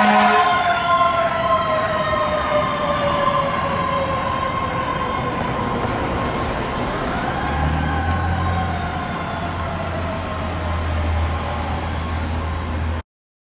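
Fire apparatus siren winding down, its wail falling steadily in pitch over several seconds, with a brief rise about halfway through. A low engine rumble comes in about halfway, and the sound cuts off abruptly near the end.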